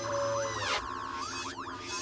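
Electronic sci-fi sound effect for a hovering robotic drone: rapid warbling chirps that sweep up in pitch, with one steep falling sweep a little under a second in.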